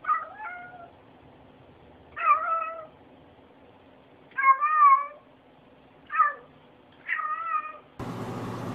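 Domestic cat meowing five times, a second or two apart, some calls bending up and down in pitch.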